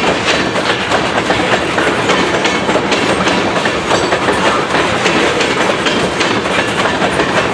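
CN freight train rolling past, its wheels clacking over the rail joints in a steady clatter.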